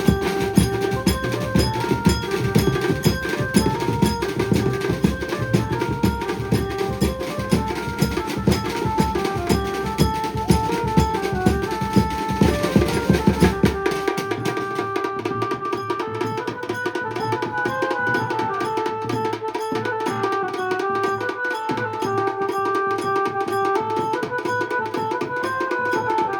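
Maharashtrian banjo party playing: an amplified melody moving in steps over fast, dense drumming. About halfway through, the heavy bass drum drops out, leaving lighter drums under the melody.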